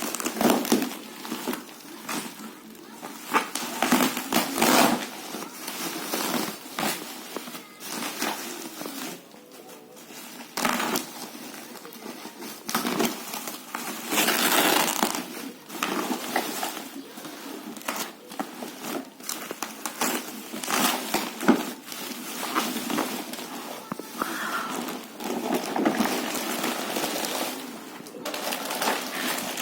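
Packaging rustling and crinkling as toys are unwrapped, with irregular clicks and knocks.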